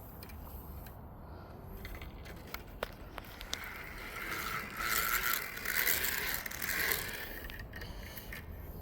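Spinning fishing reel whirring and clicking as line is wound in against a heavy fish, louder through the middle few seconds, with a few sharp clicks before it.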